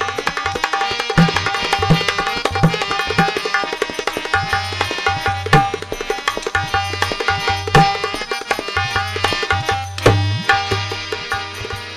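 Harmonium playing a melody over a dholak beat, the drum giving deep bass strokes and sharp slaps in a steady rhythm. An instrumental interlude with no singing.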